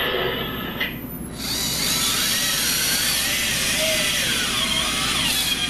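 Electric motors and servos of an all-electric RC excavator whining as the machine is worked, the whine wavering up and down in pitch with the movements and growing louder about a second and a half in.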